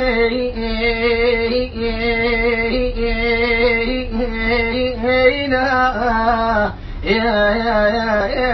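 One voice singing a long wordless melismatic line: drawn-out held notes whose pitch wavers and turns. There is a brief break about seven seconds in, and then the voice comes back in.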